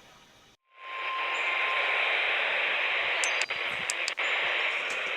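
Weather radio receiver static: a loud, steady hiss that cuts in suddenly under a second in, with a few sharp clicks about three to four seconds in.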